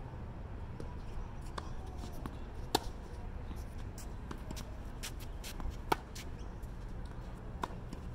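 Tennis ball impacts on a synthetic-grass court: a few sharp, isolated knocks, the loudest about six seconds in, over a steady low background hum.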